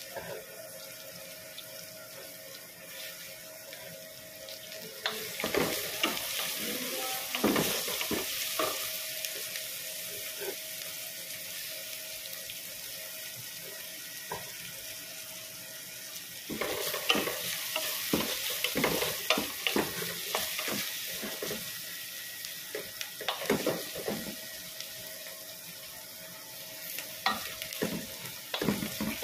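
Chopped onions frying in oil in an aluminium pot, a steady sizzle, with a wooden spatula stirring and scraping the pan in bursts: about five seconds in, again from about sixteen seconds, and near the end.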